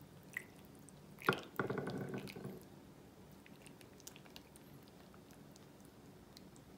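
Tomato broth poured from a glass measuring cup over food in a ceramic baking dish: a faint trickle and splash. There is a short knock about a second in, then a louder stretch of pouring for about a second.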